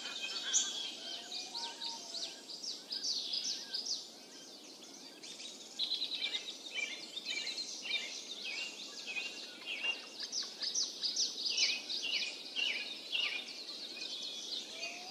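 Several small songbirds chirping rapidly and over one another in short, high notes that drop quickly in pitch, with a brief lull about four seconds in.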